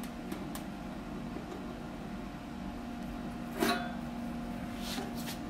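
Faint handling of a rubber shifter boot being worked onto a B&M shifter and sheet-metal riser: a few light clicks and one short scuffing noise about three and a half seconds in, over a steady electrical hum in the room.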